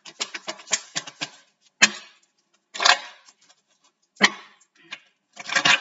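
A deck of reading cards being shuffled and handled: a quick run of clicks in the first second or so, then a few sharp separate snaps and a short rustling burst near the end.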